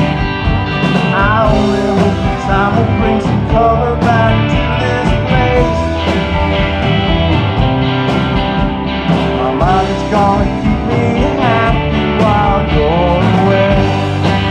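Live rock band playing an instrumental passage on electric guitars, bass and drums, with a melody line sliding and bending between notes at several points.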